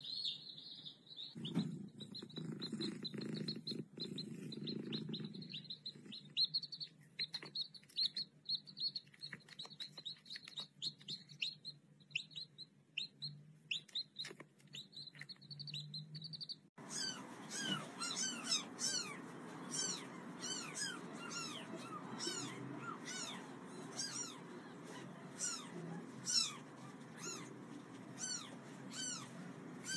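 Ducklings peeping in quick high calls. About halfway through, at a cut, a brood of chicks takes over, cheeping in rapid falling chirps.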